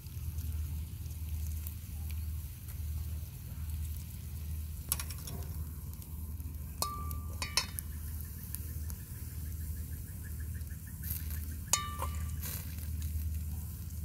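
Grilled tilapia sizzling as hot scallion oil is poured over it, over a steady low rumble. A few sharp metallic clinks about five, seven and twelve seconds in.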